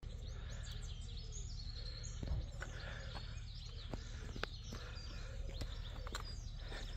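Several small birds chirping and singing in woodland over a steady low rumble, with scattered sharp clicks.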